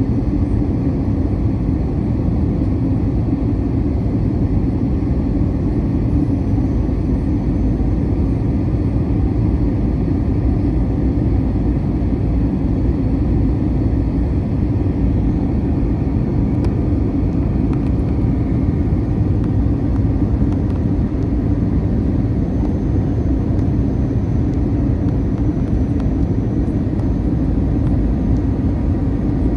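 Steady engine and airflow rumble heard inside the cabin of an Airbus A321-200 in flight, holding an even, unchanging level throughout.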